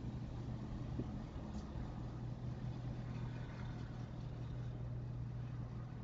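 Engine idling with a steady low hum.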